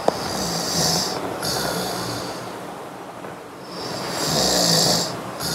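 A man snoring in his sleep: two long snores about four seconds apart, the second near the end.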